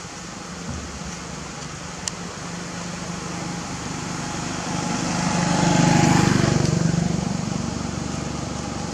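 A motor vehicle passing on the road: steady traffic noise with an engine hum that swells to its loudest about six seconds in, then fades.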